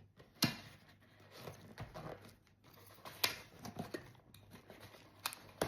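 Light rustling and scattered clicks of a boxed tool and its packaging being handled, with a few sharper knocks, one about half a second in and one near the middle.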